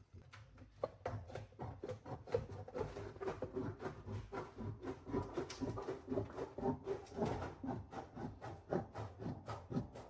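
Hand snips cutting sheet metal: a steady run of quick cutting strokes, about three a second, with the sheet rattling and ringing as it is cut.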